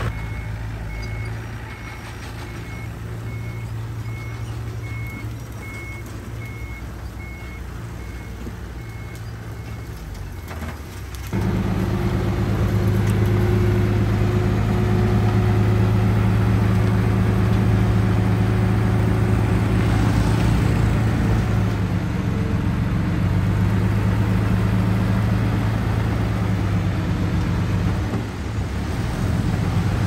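Dump truck's diesel engine running while it reverses, with a reverse alarm beeping steadily. About eleven seconds in the engine speeds up and runs louder and steady, driving the hydraulic hoist that raises the loaded bed to tip the dirt.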